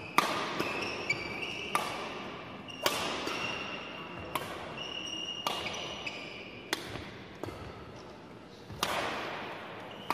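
Badminton rally: rackets striking the shuttlecock about eight times, roughly once every second or so, each hit ringing in the hall's echo, with short squeaks of court shoes on the floor between hits.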